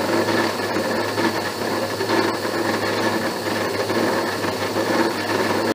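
ABENE horizontal milling machine taking a slotting cut with its arbor-mounted cutter: a loud, steady, harsh cutting chatter over the hum of the machine, which sounds awful and painful. The chatter is typical of a cutter that may not be as sharp as the machinist thought. The sound cuts off suddenly at the very end.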